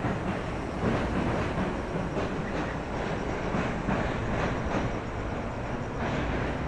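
Electric commuter train crossing a steel railway bridge close by: a steady rumble with a rhythmic clatter of wheels over rail joints.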